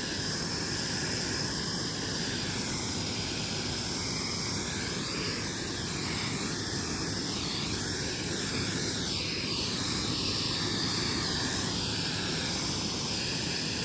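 Orchard spray machine's motor and pump running steadily, a constant mechanical drone.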